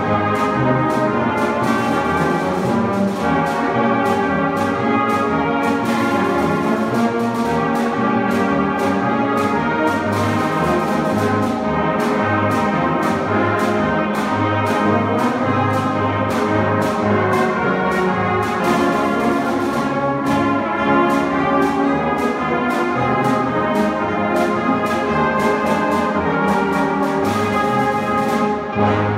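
Brass band of cornets, euphoniums, tubas and trombones playing the closing bars of a concert march, with a steady marching beat and the full band ending together at the close.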